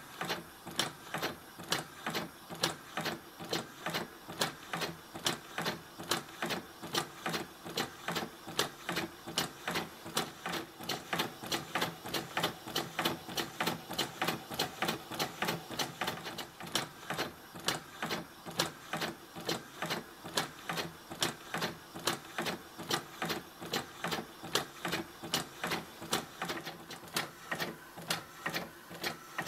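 Fischertechnik model grasshopper half-beam engine running on compressed air: its plastic linkage and pneumatic cylinder click in a steady, rapid rhythm, several clicks a second.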